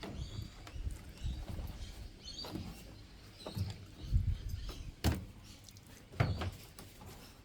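Irregular knocks and clunks of washing-machine parts being handled during repair work, with sharper knocks about five and six seconds in.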